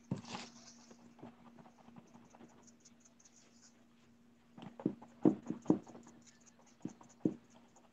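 Soft, scratchy taps of a paint-loaded sponge and fingers against a canvas board, with a denser run of louder taps from about four and a half to seven and a half seconds in. A faint steady hum runs underneath.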